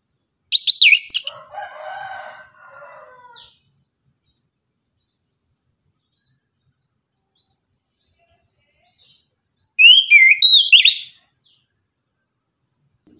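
Caged chestnut-capped thrush (anis kembang) singing two short, loud bursts of quick, high sweeping notes, one just after the start and another about nine seconds later. A quieter, lower-pitched call follows the first burst for about two seconds.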